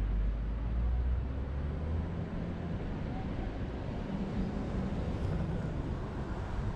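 Steady road and engine noise of a car driving. The low rumble is heaviest for the first two seconds, then settles to an even level.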